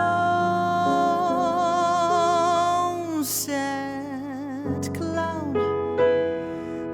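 Jazz voice-and-piano duo: a female singer holds long wordless notes with vibrato over sustained piano chords, with a short breath about three seconds in.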